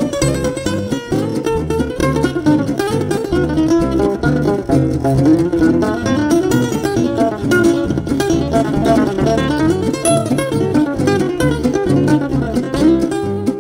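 Background music: an acoustic guitar playing a quick, busy run of plucked notes.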